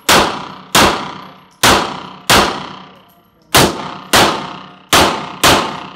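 Pistol shots fired in pairs, eight in all, each ringing out in a long echo off the hard walls of an indoor range.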